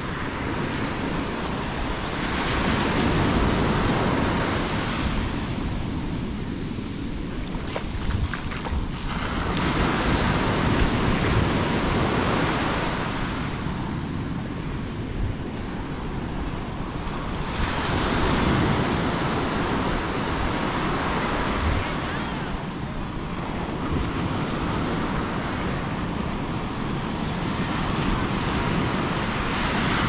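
Atlantic surf breaking and washing up the sand, swelling and fading in a slow rhythm about every seven or eight seconds.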